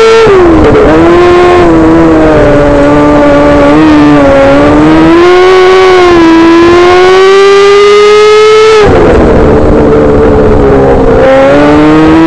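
Micro sprint car's motorcycle engine running hard and very loud, heard from on board. The pitch drops sharply just after the start as the driver lifts for a turn, then climbs steadily for about eight seconds down the straight and around. It drops sharply again about nine seconds in and climbs once more.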